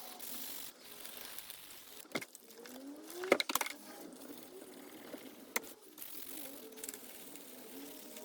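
Workshop handling noises: a few sharp metal clinks and knocks as parts and tools are picked up and set down, the loudest a quick cluster about three and a half seconds in.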